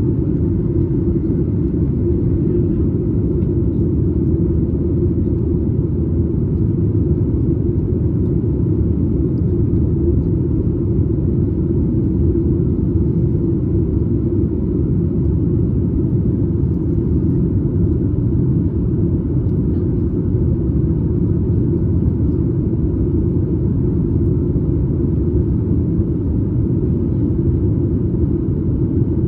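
Steady low rumble of cabin noise inside a Boeing 737 MAX 8 in flight: its CFM LEAP-1B engines and the rush of air along the fuselage, heard from a window seat just behind the wing.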